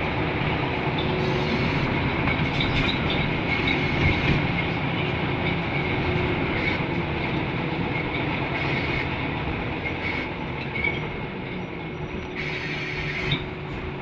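Interior running sound of a Scania L94UB bus on the move: a steady drone with a faint high whirring whine held through it, the strange whirring noise the bus makes. A short burst of hiss comes near the end.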